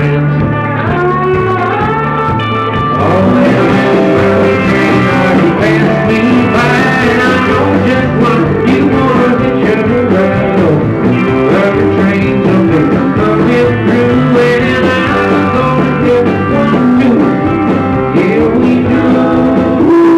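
A live country band playing: acoustic and electric guitars, pedal steel guitar, bass and drums. The band gets fuller and louder about three seconds in.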